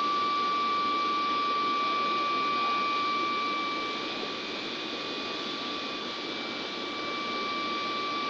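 Steady rushing machine noise with a constant high-pitched whine running through it; it eases slightly about halfway through.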